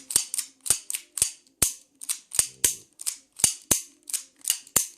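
Colt 1911 Blackwater edition CO2 pellet pistol's mechanism being worked by hand: a quick series of sharp metallic clicks, many in close pairs. The pistol has just been reassembled with its top spring in the wrong way round, which makes the action feel stiff.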